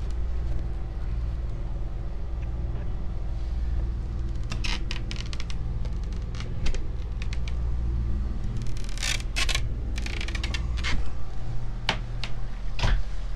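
Steady low hum of the catamaran's engine heard from inside the cabin, with clicks and clunks of the forward hatch's latches being undone and the hatch swung open, loudest about nine seconds in and again near the end.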